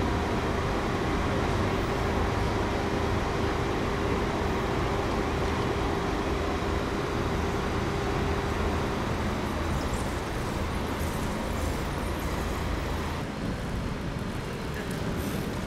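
Street traffic noise: a steady rumble of cars and an Alstom Citadis tram crossing the junction, with a steady hum that stops about nine seconds in. The sound thins out about thirteen seconds in.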